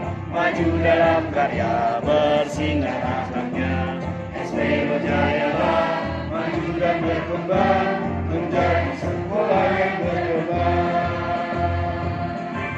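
A group of adult voices singing a school march together in unison, over an accompaniment with a steady beat.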